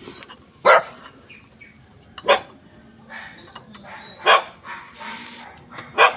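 A dog barking: four single barks, each roughly one and a half to two seconds apart.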